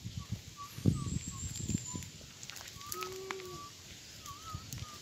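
A bird calling with short, thin notes repeated every half second or so, some of them wavering, over low rumbling noise with a thump about a second in.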